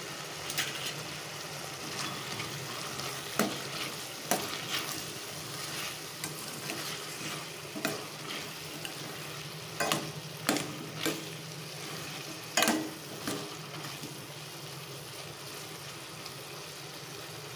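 Diced cucumber sizzling in a stainless steel kadai while a metal spoon stirs in the chilli powder and turmeric just added, with sharp scrapes and knocks of the spoon against the pan every few seconds, loudest about two thirds of the way through.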